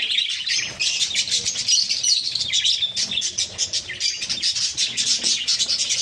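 A flock of budgerigars chattering: many short, high chirps and warbles overlapping without a break, the busy sound of an active, contented aviary flock.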